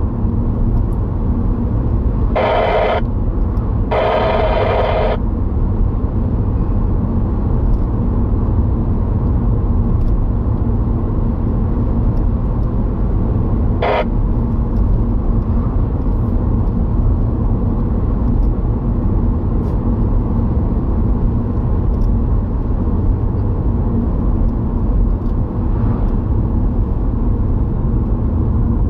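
Steady road and engine rumble inside a moving car. Two short louder sounds come about two and four seconds in, and a brief one near the middle.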